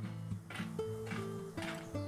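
Background music: a light tune of held notes that change every half second or so, over a soft, steady beat.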